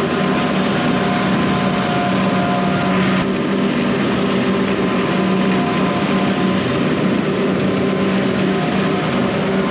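Tractor engine running steadily at a constant speed, a continuous even drone.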